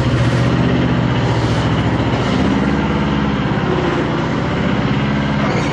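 TCM skid-steer loader's two-cylinder Kubota diesel engine running as the loader drives with its bucket raised. The engine note shifts up and down about two to three and a half seconds in.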